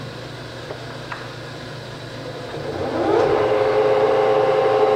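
Toolmex TUR 630A engine lathe's spindle starting up about two and a half seconds in: a whine rises in pitch over about half a second, then levels off into a steady, louder multi-tone running whine over a low hum.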